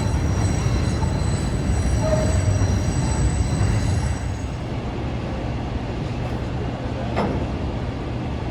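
Elevated Chicago 'L' train running on the overhead Loop track, its steel wheels squealing in thin high tones that stop about four seconds in, over a steady low rumble.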